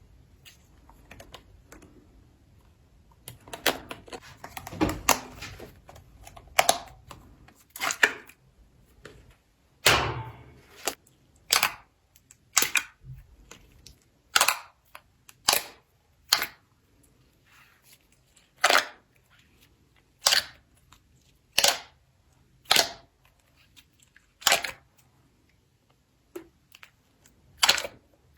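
Slime being worked by hand: a spell of dense crackling, then a run of sharp, separate pops about once a second.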